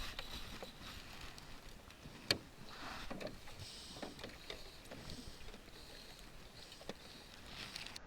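Water sloshing against a small fishing boat, with scattered small knocks and one sharp knock about two seconds in.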